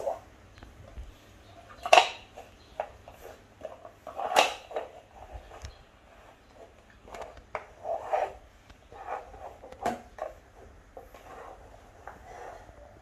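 A green plastic toy knocking and scraping on a floor as a French Bulldog puppy noses and paws at it. The knocks are irregular, the loudest about two seconds and four seconds in.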